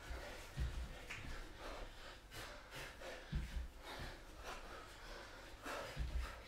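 Hard breathing and sharp exhales from exercise, with dull thuds of bare feet landing on a wooden floor every second or two as the knee drives and steps go on.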